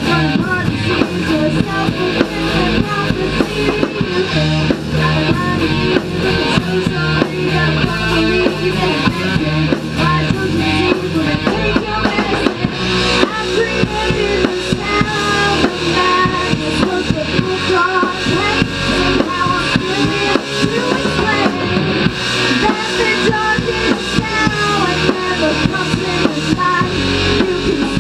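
Rock music with electric guitar and a drum kit playing, loud and steady with a regular beat.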